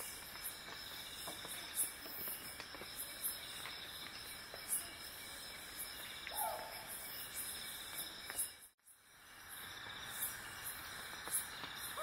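Insects chirring in forest ambience: a steady, high, pulsing buzz, with a short lower note about six and a half seconds in. The sound drops out for a moment just before nine seconds, then resumes.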